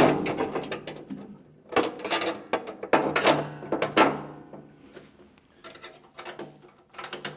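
Hand wrenches working a nut and plow bolt loose on a snowblower's under-auger plastic slide: irregular metal scraping and clinking in short bursts, then a run of small clicks near the end.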